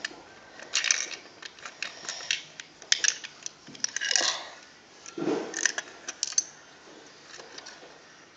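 Plastic Lego bricks clicking and clattering as they are picked up and pressed into place, an irregular run of sharp clicks with a few short rustling handling noises.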